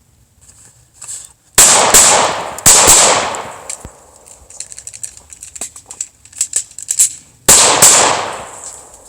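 Pistol shots fired in quick pairs: two pairs close together, then a pause with light clicks and knocks, then a third pair near the end. Each shot rings out with a long echo.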